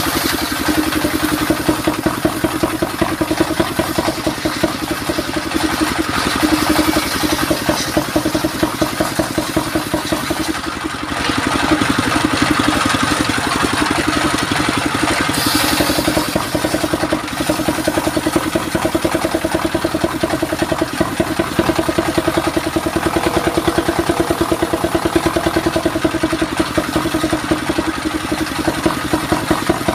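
Belt-driven circular saw bench running steadily on its stationary engine, a continuous rapid pulsing drone, while the blade rips mahogany planks into boards, with a short hissing cut near the start and again about halfway.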